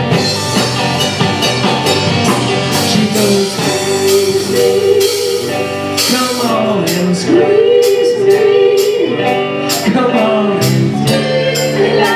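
A live rock band playing: electric guitars and a drum kit, with a sung melody over them.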